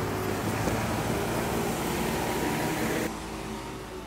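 JCB Agri telehandler's diesel engine running steadily as it drives past. The sound drops suddenly about three seconds in and then fades away.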